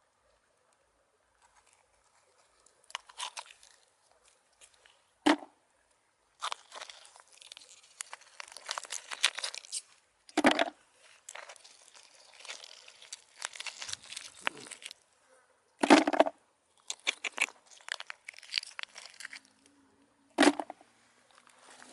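Close crunching and rustling, with four sharper knocks about five seconds apart.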